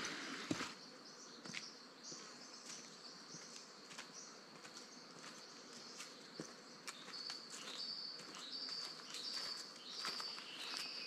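Rainforest insects chirping: a steady high-pitched trill, joined about seven seconds in by evenly repeated chirps a little under two a second. Faint footfalls on the walking track tap underneath.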